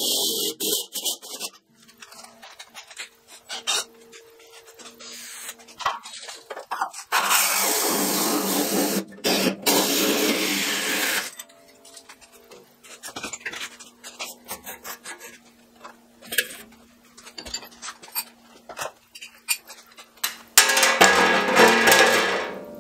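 A hole saw on a drill cuts through a sheet-metal belt guard. The cut is loudest for about four seconds midway, with the drill motor's steady hum and scattered clicks around it.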